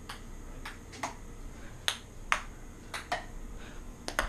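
A ping pong ball in a rally, struck and bouncing: a string of about eight or nine short, sharp clicks at uneven intervals, the last two close together near the end.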